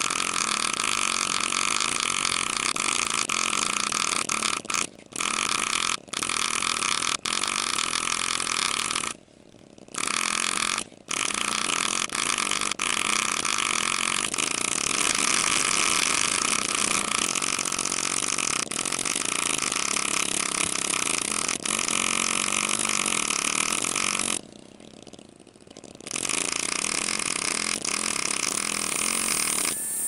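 Pneumatic engraving handpiece driving a graver into a titanium knife handle: a steady, high buzz that stops and restarts several times, with longer pauses about ten seconds in and again near twenty-five seconds.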